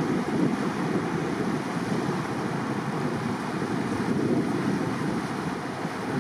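Steady rushing noise of wind buffeting the microphone over the wash of water from a boat under way.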